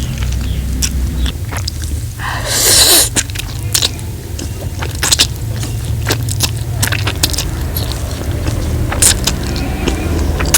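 Close-miked eating sounds of spaghetti carbonara: many short wet mouth clicks and chewing, over a steady low hum, with one louder rush of noise about two to three seconds in.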